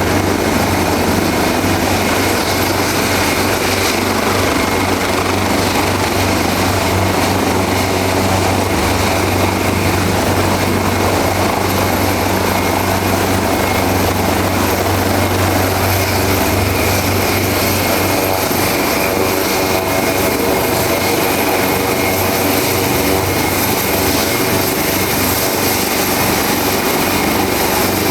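Leonardo AW189 twin-turbine helicopter running steadily, with a heavy low rotor beat and a steady high turbine whine. The low rotor sound eases somewhat about halfway through.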